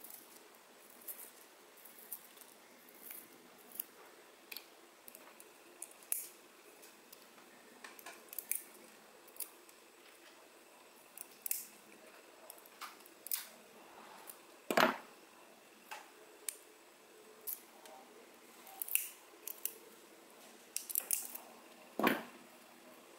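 Scattered small clicks, snips and scrapes of pliers and fingers working a small speaker's voice coil free from its corrugated spider, with two louder knocks, one about two-thirds of the way through and one near the end.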